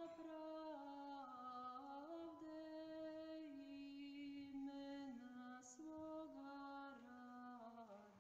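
Quiet, slow sung chant: a single vocal line holding long notes that step up and down in pitch, sinking lower and fading near the end.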